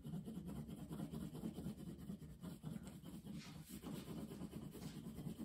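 Crayon rubbing back and forth on paper in quick repeated strokes: colouring in a large area with the side of the crayon.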